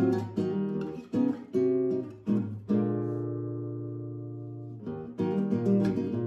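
Background music: acoustic guitar strumming chords, with one chord left ringing and fading for about two seconds in the middle before the strumming picks up again.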